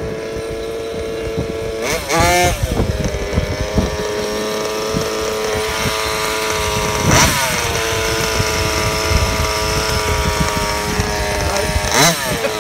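HPI Baja 5T's two-stroke petrol engine idling steadily, blipped to short revs about two seconds in, again about seven seconds in, and near the end.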